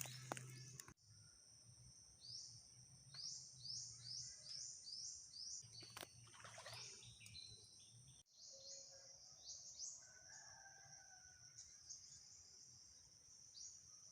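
Faint outdoor ambience: a bird giving runs of short, quick chirps, about two a second, over a steady high-pitched insect drone.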